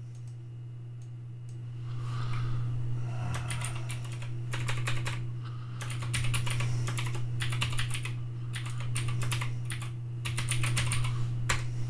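Typing on a computer keyboard: runs of quick key clicks starting about two seconds in, broken by short pauses.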